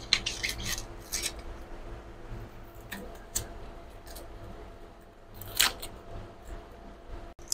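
Dry, papery red-onion skin crackling and tearing as it is peeled off by hand and with a knife, in a string of short crisp rustles, the loudest about five and a half seconds in. A steady low hum runs underneath.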